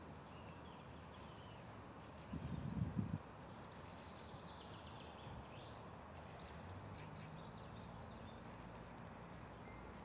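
Faint birdsong: scattered high chirps and short trills over a quiet woodland background. A brief low rumble on the microphone comes a little over two seconds in.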